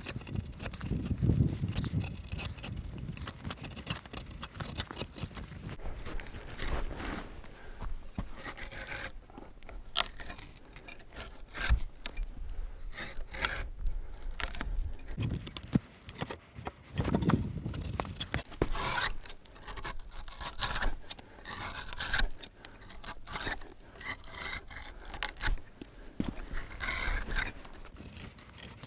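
A drawknife blade being pulled along a log, scraping and shaving off the bark in a long series of uneven strokes.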